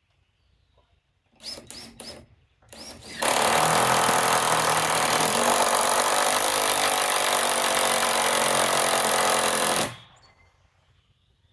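Ryobi cordless impact driver sinking a lag bolt into timber. A few short triggers come first, then about six and a half seconds of continuous hammering that stops abruptly as the bolt seats.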